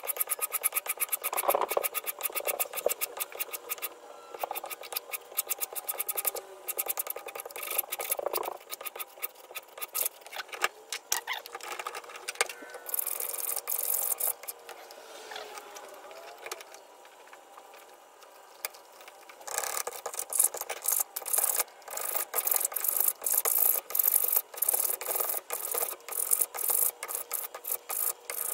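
Block plane shaving the edge of a small wooden piece down to a marked line, in quick repeated scraping strokes. The strokes ease off for a few seconds in the middle, then pick up again.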